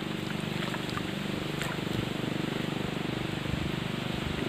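Strong wind blowing steadily, with a steady low, fluttering hum underneath.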